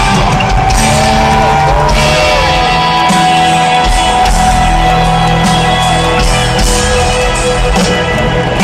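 Live rock band playing at stadium volume, heard from within the crowd through a phone microphone: heavy distorted electric guitar over drums and bass, with held guitar notes bending in pitch in the first couple of seconds.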